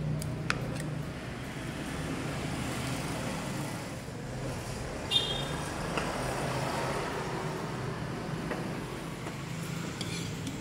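Steady rumble of road traffic, with a short sharp click about five seconds in.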